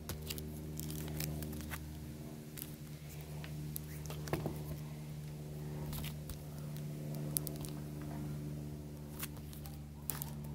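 Clear plastic sleeves and card-backed paper prints being handled: scattered crinkles, rustles and small clicks over a steady low machine hum.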